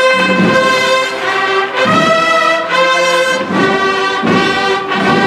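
Processional brass band playing a slow Holy Week march, loud held chords that change every second or two.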